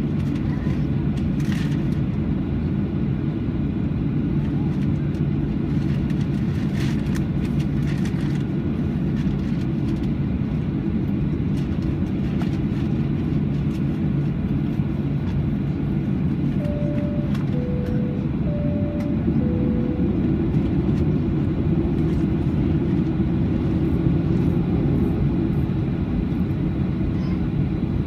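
Steady low cabin hum inside a Boeing 737-800 as it taxis, its CFM56-7B engines at idle. A few faint knocks come in the first several seconds, and about two-thirds of the way through come four short tones alternating between a higher and a lower pitch.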